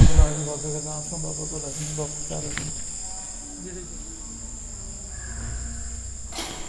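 Steady, high-pitched trilling of insects, without a break, over faint background voices and a low hum that fades after about two seconds.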